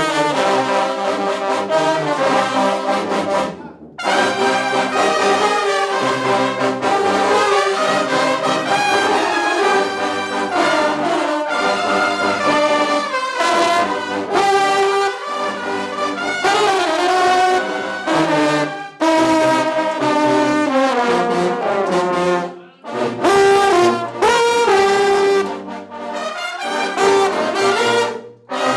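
Junkanoo brass section playing a tune, several horns in harmony, with a few short breaks between phrases.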